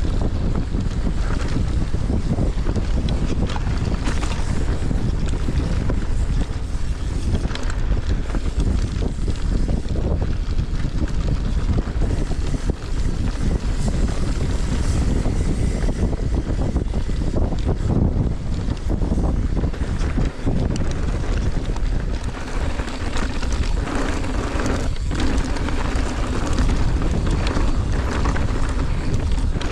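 Wind buffeting an action camera's microphone during a fast mountain-bike descent, with the bike rattling and knocking over rough trail throughout.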